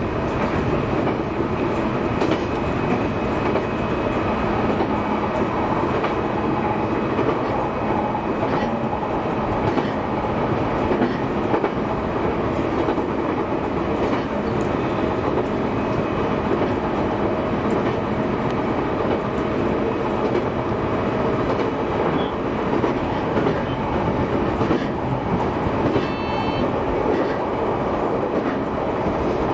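JR East E131-series electric train running along the track, heard from inside the car: a steady rumble of wheels on rail. A brief high ringing comes in near the end.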